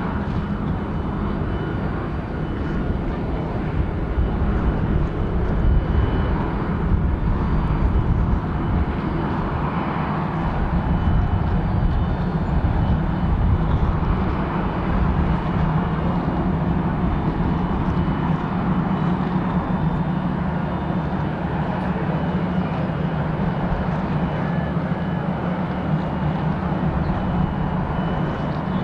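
Steady low drone of the Holland-class patrol vessel HNLMS Holland's diesel engines as the ship passes close by, with a low hum that grows stronger past the midpoint.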